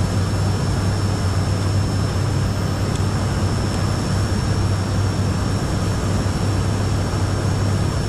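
ATR 42-500 flight-deck noise on final approach. Its Pratt & Whitney PW127 turboprops and propellers run steadily, a strong low hum under the rush of airflow, with a thin steady high whine above.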